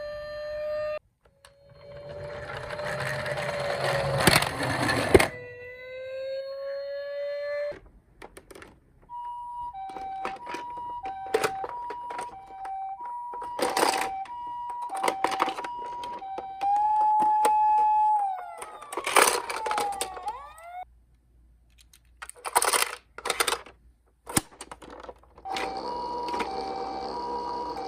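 Toy emergency-vehicle minicars sounding their electronic sirens one after another: a wailing siren that rises and falls, then an alternating high-low two-note siren, briefly held on one tone before gliding away, and the two-note siren again near the end. Clicks and rattles come in between, with a loud noisy rattling patch a few seconds in.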